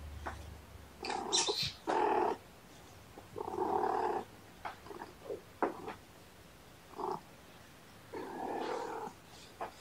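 A cat vocalizing in several short, pitched calls, each under a second, separated by pauses.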